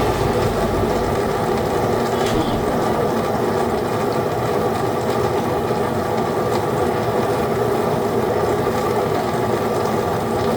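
Steady background music.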